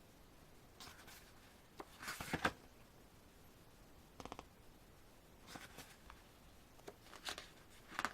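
Paper being handled: short, scattered rustles and crinkles as the album's printed contents (poster, photo pages) are moved and turned over.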